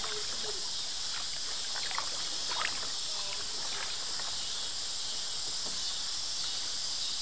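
Kayak paddle strokes dipping and splashing lightly in moving river water, a few soft splashes spread through the first few seconds, over a steady high hiss.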